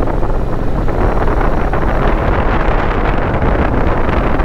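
Steady wind noise rushing over an onboard microphone on a moving Honda NC750X motorcycle, mixed with the bike's engine and tyre noise at cruising speed.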